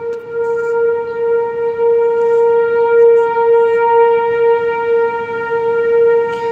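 Outdoor tornado warning siren sounding one long, steady-pitched tone, swelling and easing a little in loudness.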